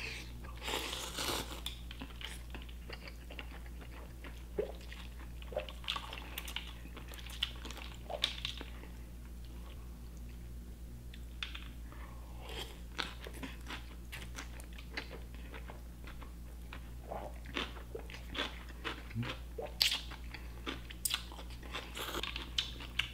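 A person chewing and crunching mouthfuls of Korean cold noodles (naengmyeon) with crisp radish and cucumber, in irregular short wet clicks and crunches, over a faint steady low hum.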